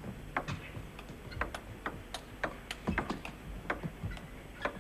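Table tennis rally: the ball clicking back and forth off the bats and the table in a quick, irregular string of sharp ticks, about three or four a second.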